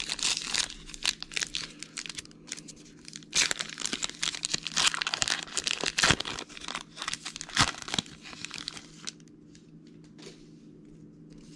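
The wrapper of a 2020 Diamond Kings baseball card pack being torn open and crinkled, in crackling bursts that go quiet about nine seconds in.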